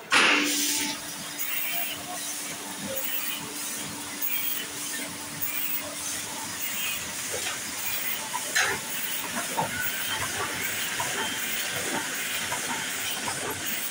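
Heidelberg single-colour sheet-fed offset press running: a loud burst of hiss just after the start, a steady low tone for about the first six seconds, then continuous air hiss and rapid mechanical clatter as the feeder takes up sheets of card.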